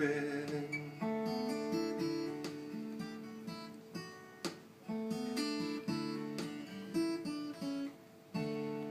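Acoustic guitar playing the closing chords of the song, strummed and picked, with a last chord struck near the end and left to ring.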